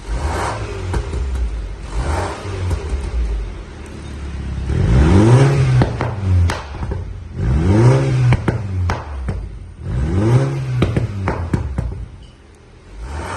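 Mini Cooper S with a custom-made cat-back exhaust being revved: a few short blips, then three longer revs that climb and fall. Each rev is followed by a string of sharp pops and crackles from the exhaust on the overrun.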